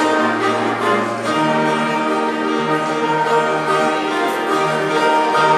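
Orchestral music with bowed strings holding long, sustained notes.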